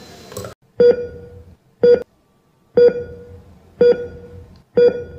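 Heart-monitor beep sound effect: five short, clear beeps about one a second, each fading quickly.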